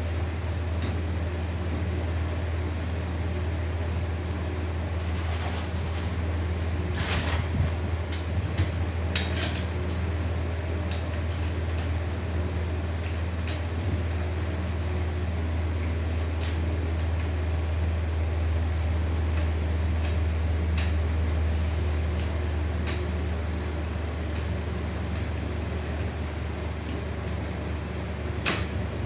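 A steady low hum, with scattered short clicks, knocks and rustles of equipment being handled, such as a light stand and softbox being unpacked; the sharpest clicks come about seven seconds in and near the end.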